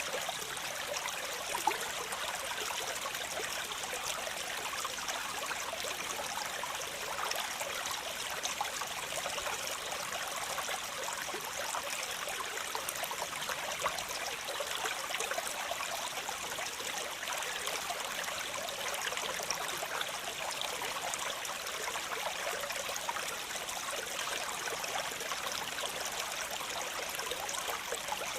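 Waterfall: water falling and splashing continuously, a steady rushing hiss full of fine splashes, weighted toward the high end with little deep rumble. One brief sharp click about two seconds in.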